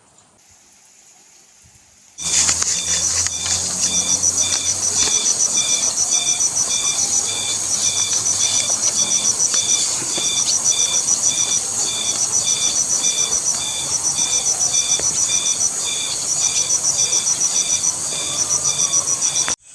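Insect calling: a loud, rapid, evenly pulsed chirping that starts suddenly about two seconds in and goes in long runs with brief breaks, over a steady hiss, then stops abruptly near the end.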